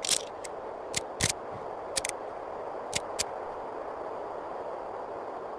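A run of about eight sharp metallic clicks and clacks, uneven in spacing, in the first three seconds or so, like a Mosin-Nagant bolt-action rifle's bolt being worked. A steady hiss lies under them and goes on alone afterwards.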